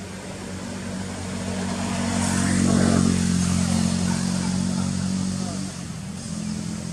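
A motor vehicle's engine passing close by, growing louder to a peak about three seconds in and then fading.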